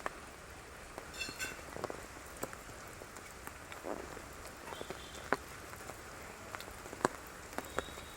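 Rain falling, with scattered individual drops striking a surface at irregular intervals over a steady soft hiss. A brief high-pitched chirp is heard about a second in.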